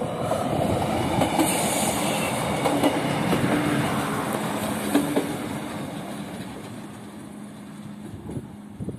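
GW Train diesel multiple unit passing close by, its engine and wheels rumbling with a few clacks over the rail joints. It is loudest in the first few seconds, then fades steadily as the train pulls away.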